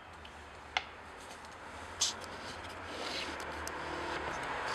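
Footsteps and small knocks on old, sagging wooden floorboards, with a sharp click about a second in and a louder knock about two seconds in, over a low steady hum.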